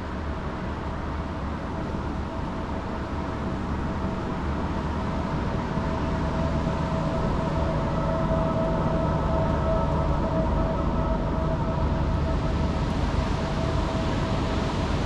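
Steady rush of surf breaking on rocks, growing gradually louder, with a faint steady hum running through it.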